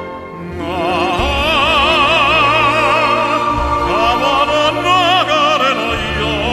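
Operatic tenor singing sustained notes with wide vibrato over orchestral accompaniment, the voice coming in about half a second in.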